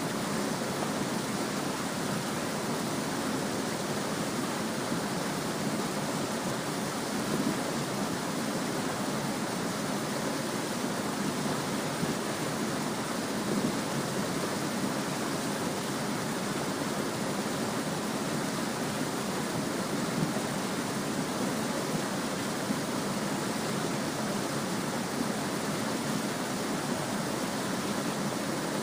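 Small stream babbling: a steady, even rush of running water.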